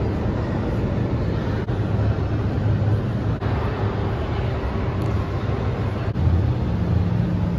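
Steady low rumble of a large indoor hall's background noise, with no clear single event, broken by brief dips at edit cuts.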